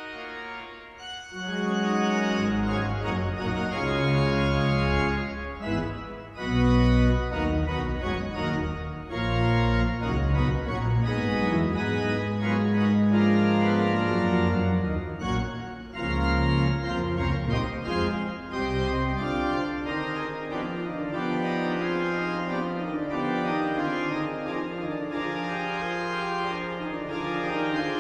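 Large concert pipe organ, the 1911 Forster & Andrews organ rebuilt by Compton in 1951, playing a fanfare: full held chords over deep pedal bass, entering after a quiet first second or so. About twenty seconds in the deep bass drops away and softer sustained chords carry on.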